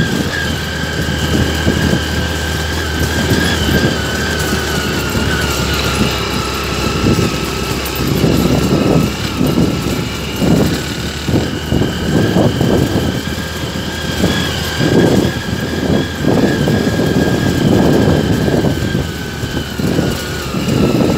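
Vehicle engine running steadily while climbing a slippery, muddy dirt road, with a steady whine and uneven low rumbles from about eight seconds in.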